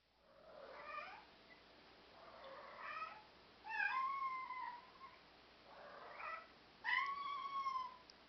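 European Shorthair cat meowing five times, the third and fifth meows long and drawn out.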